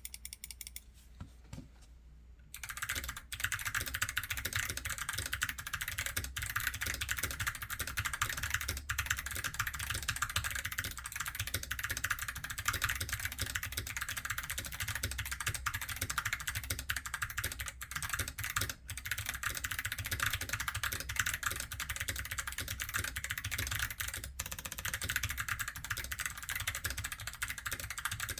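Fast, continuous typing on a CIY GAS67 mechanical keyboard with clicky Kailh Box Pink switches, tape-modded with PE foam switch pads and fitted with XDA keycaps. A few separate key presses come first, then steady rapid typing starts about two and a half seconds in.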